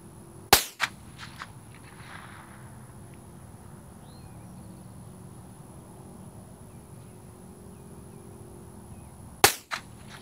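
Two .22 LR rifle shots from a custom Ruger 10/22 about nine seconds apart, each a sharp crack followed a fraction of a second later by a softer echo.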